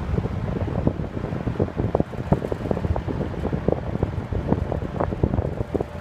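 1970s Champion Cooler–made box fan with three metal blades running on medium speed. Its breeze buffets the microphone with a steady low rumble and irregular thumps.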